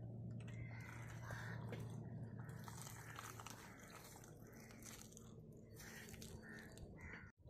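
Tractor tyre rolling slowly over plastic drink sachets, with irregular crackling and crunching as they are flattened and burst. A low tractor engine hum runs underneath, weakening after about three seconds.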